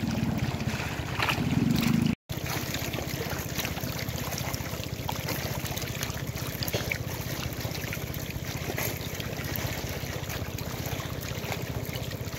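Shallow pond water trickling and splashing steadily, with many small scattered ticks and splashes from stranded tilapia and tiger shrimp flipping in the water of a drained pond.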